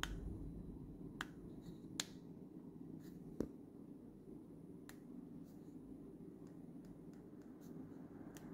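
Buttons being pressed on a small handheld LED-strip remote control: sharp, irregularly spaced clicks, the loudest about three and a half seconds in and fainter ones near the end, over a low steady hum.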